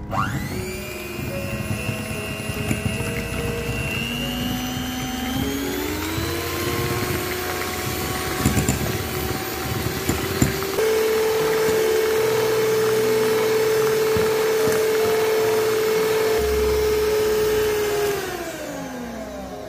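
Electric kitchen mixer motor running: it starts with a rising whine, steps up in speed a few times and holds steady at its highest speed, then winds down just before the end.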